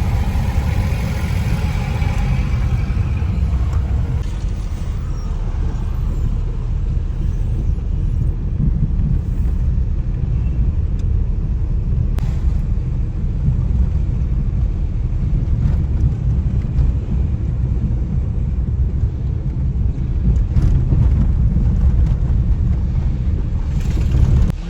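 Steady low rumble of a car in motion on the road, heard from inside the vehicle.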